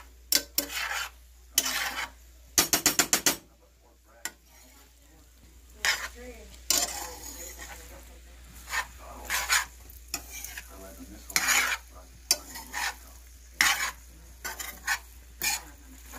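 A metal spoon stirs and scrapes shrimp, imitation crab and peppers around a frying pan in irregular strokes, with a quick rattle of strokes about three seconds in. The sauté sizzles faintly underneath.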